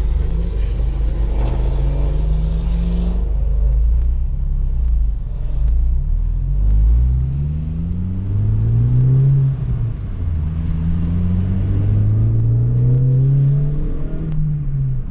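Honda Fit's four-cylinder engine heard from inside the cabin, accelerating hard through the gears with its new 4.928 final drive: the engine note climbs three times, each climb cut off by a drop in pitch at an upshift, and it falls away near the end.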